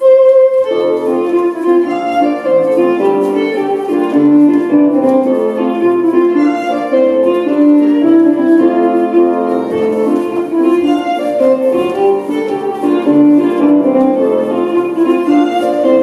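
Scottish country dance band music: a lively jig, the tune starting about half a second in after a brief pause.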